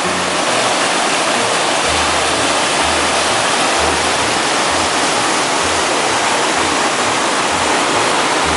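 Mountain stream cascading over rocks: a loud, steady rush of water.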